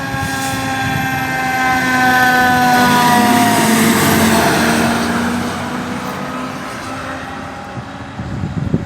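A fire engine going by with its siren sounding a slowly falling tone that fades out about four seconds in. Engine and road noise swell as it passes, then die away.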